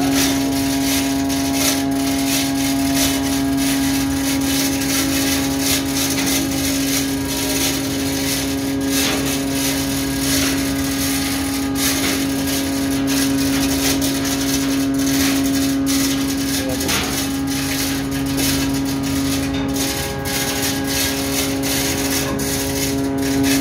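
A ship's machinery hum, steady with one strong low tone, runs under rapid, irregular clicking and rattling from a manual chain hoist and the anchor chain it is pulling on.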